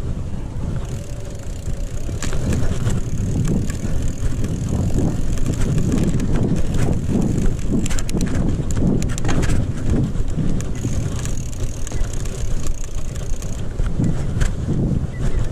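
Mountain bike ridden fast over a dirt trail, heard from a handlebar-mounted camera: a steady rumble of wind on the microphone and tyres on gravel, with many small clicks and knocks as the bike rattles over bumps.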